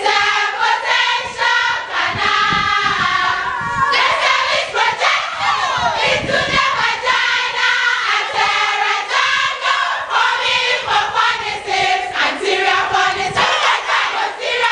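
A large group of young women singing and shouting together in a loud, lively chant-song, with hand clapping throughout.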